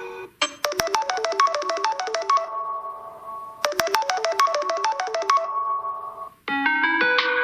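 Samsung Galaxy S21 Ultra built-in ringtone: a quick run of short, bright struck notes that ends on a held note, played twice. A different ringtone starts near the end.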